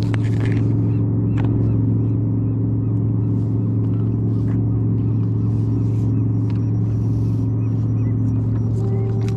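An engine running at a steady speed, a constant low drone with no revving.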